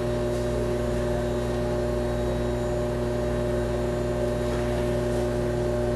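Steady electrical hum made of several fixed low and middle tones, holding level without change.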